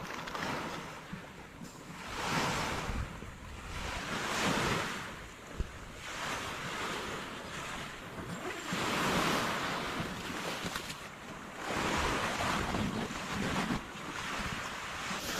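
Sea waves washing onto the shore, the noise swelling and fading again and again, with wind buffeting the microphone.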